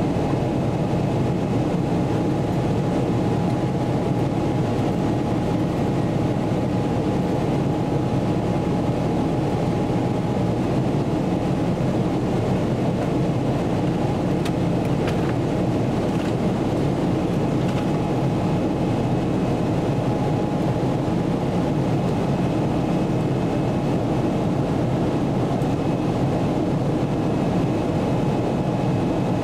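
Steady cabin noise inside a Boeing 777-300ER in flight: a low, even rush of airflow and GE90 engine noise, with a faint steady tone above it.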